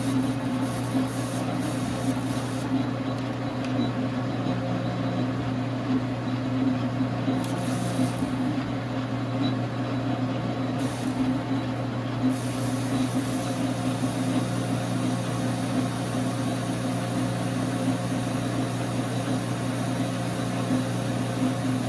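Dar Sin 12x37 gap-bed lathe, its 220 V single-phase motor and gearing running with a steady, constant hum, the carriage on power feed through a slow turning pass.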